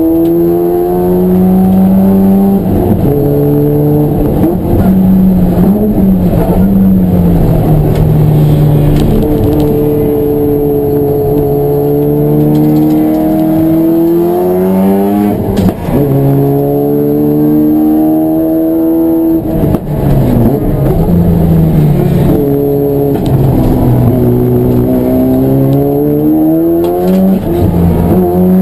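Race car engine revving hard, its pitch climbing and falling repeatedly, with sudden drops at several gear changes as it is driven around a circuit.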